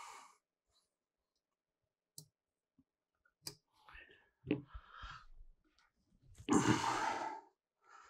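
Sharp clicks of wire fan clips being worked onto a Noctua CPU cooler's heatsink, a few seconds apart, with soft handling noise. Near the end comes a long breathy exhale, the loudest sound, about a second long.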